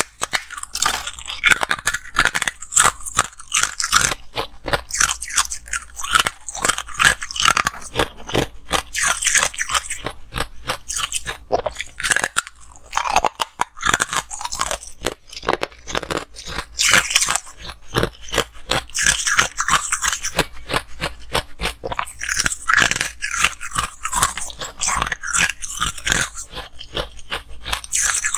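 Chunks of freezer frost being bitten and chewed, a continuous run of crisp crunches, bite after bite.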